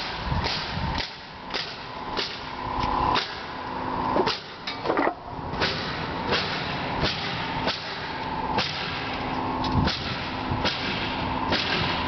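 Building framing work: repeated nailing impacts, sharp knocks coming about once or twice a second at an uneven pace, over a steady tone.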